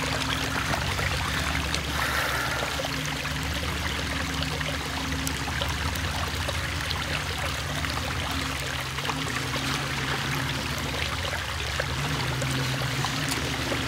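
Jeep engine running low and steady as it crawls up a rocky trail, its pitch shifting a little now and then, over a steady rush of water running down the wet trail.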